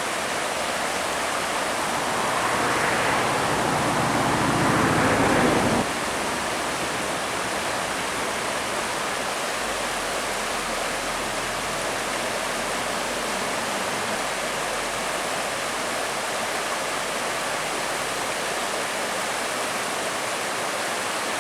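Creek water rushing steadily over rocks. It is somewhat louder for the first few seconds and drops abruptly about six seconds in.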